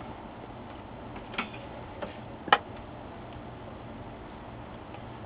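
Three small clicks and taps of a screwdriver and screws against the printer's metal board bracket, the sharpest about two and a half seconds in, over a steady low hum.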